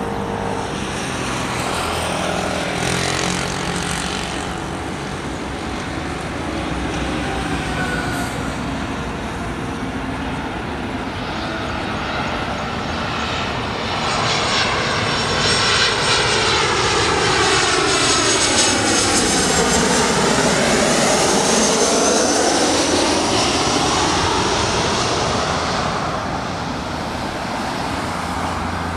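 Ryanair Boeing 737-800's CFM56 jet engines on final approach, growing louder and passing overhead about halfway through, with a sweeping whine that falls and then rises again as the jet goes by, then easing off as it heads away to land.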